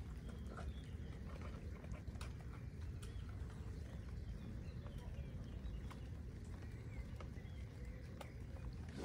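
Outdoor ambience: a low wind rumble on the microphone with faint bird calls and scattered light clicks.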